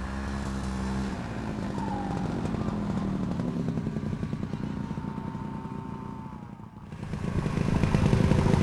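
Snowmobile engine running under way; it eases off about six and a half seconds in, then pulls back up louder.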